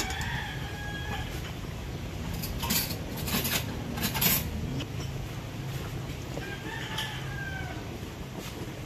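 A rooster crowing twice: one drawn-out crow at the start and another about six and a half seconds in. A few short sharp clatters fall in between, over a steady low rumble.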